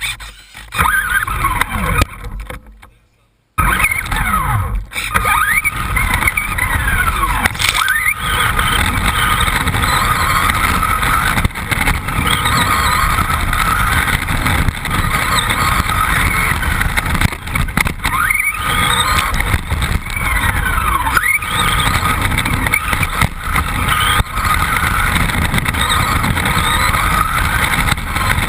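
Radio-controlled buggy heard from its onboard camera: a steady rush of noise with the motor's whine rising and falling again and again as it speeds up and slows. There is a brief dropout about three seconds in before the run settles into continuous sound.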